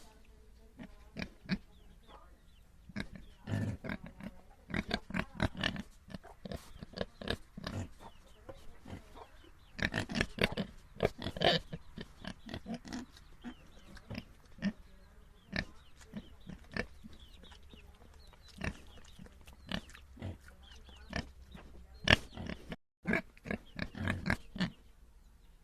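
Domestic pigs grunting in many short, separate grunts, coming in busy bunches with quieter gaps between them.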